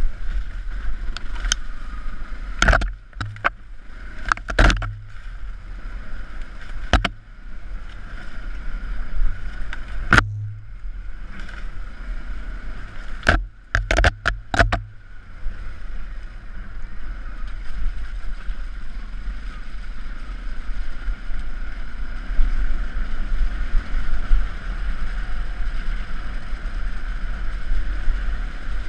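Yamaha WR125R's single-cylinder four-stroke engine running while the trail bike is ridden, under a low wind rumble. In the first half a string of sharp knocks and clatters cuts through, then the engine and wind run on steadily.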